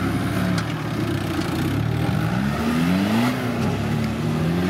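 Suzuki Samurai off-roader's engine revving hard under load. Its pitch climbs and drops several times as the throttle is worked.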